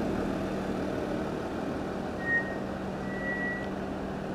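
Steady low machine hum, with two short high beeps a little after two seconds in, the second one longer.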